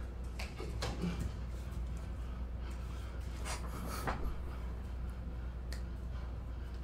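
Quiet, steady low hum with a few faint, short knocks scattered through it.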